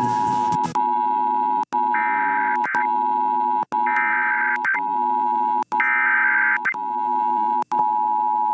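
Emergency Alert System broadcast tones: a steady alert tone just under 1 kHz, cutting out briefly about every two seconds. Three short bursts of higher, buzzy data noise come about two seconds apart.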